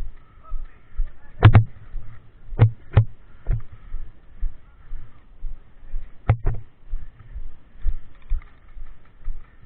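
Walking footsteps, about two a second, with six sharp clacks, some of them in close pairs.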